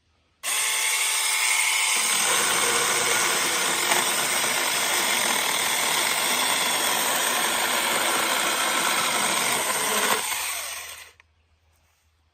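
Battery-powered 6-inch mini chainsaw starts up suddenly with a steady motor whine, then bites into wood from about two seconds in, its sound turning rougher and noisier while it cuts. It winds down and stops about a second before the end.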